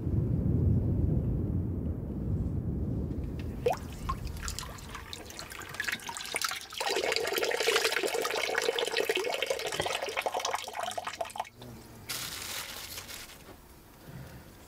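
Low rolling thunder for the first few seconds. Then water pouring and splashing as long hair is rinsed over a pot; it cuts off sharply about eleven seconds in, with a shorter splash soon after.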